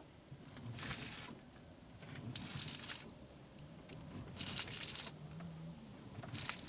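Faint scraping rustles as the front wheels of a parked car are steered back and forth: four short bursts about a second and a half apart, as the coil spring rubs on the plastic wheel-arch liner and the tyre scrubs on the ground.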